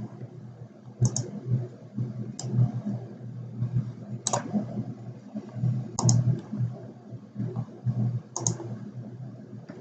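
Computer mouse clicking: about five separate clicks a second or two apart, some as quick double clicks, over a steady low hum.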